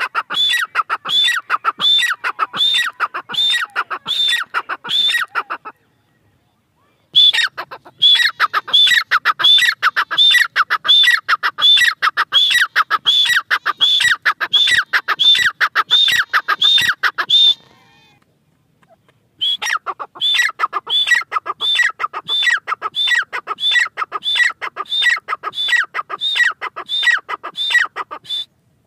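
Grey francolin calling: a loud, fast, even series of sharp notes, about three a second, each sweeping up and down. The series breaks off twice for a second or two.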